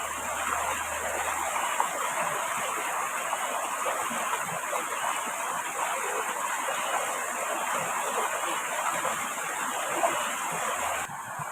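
Steady rushing of water, an even dense hiss that drops a little in level just before the end.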